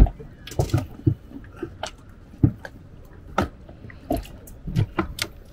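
Irregular knocks and clicks of a small two-stroke outboard motor being set onto an inflatable tender's transom and its screw clamps worked, with a sharp knock at the start and scattered clicks after.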